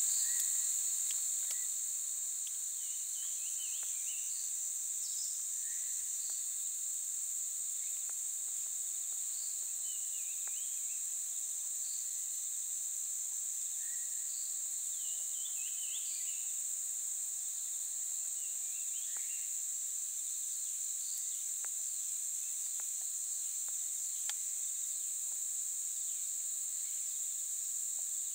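Steady high-pitched chorus of insects, with short bird chirps scattered through it.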